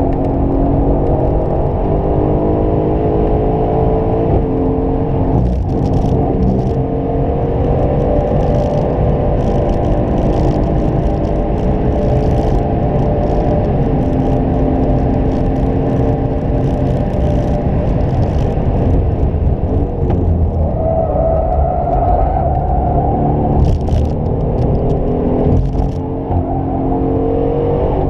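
2018 Aston Martin Vantage's twin-turbo V8 at full throttle, heard from inside the cabin, its pitch rising as it shifts up from fourth to sixth gear. Partway through the throttle is lifted and the engine note falls as the car brakes and shifts back down, with a few sharp cracks, and then it picks up again.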